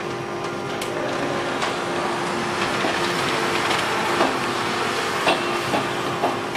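Wide sheet of membrane film being pulled off its roll and dragged across the bed of a vacuum membrane press, rustling and crinkling, with several sharp knocks in the second half. A steady machine hum runs underneath.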